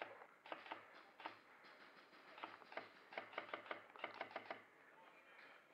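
A run of quiet, sharp clicks, about twenty in four and a half seconds, irregularly spaced and bunching into quick strings of several a second near the middle and end.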